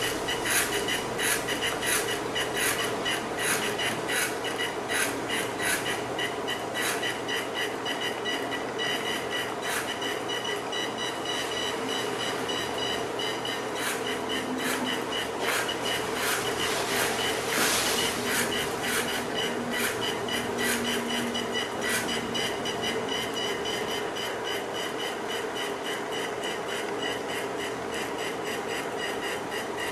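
Small geared drive motors of a Robbo educational robot whining steadily, with rapid, irregular clicking as the robot jerks along in short stop-start moves, switching its motors on and off to follow a white line.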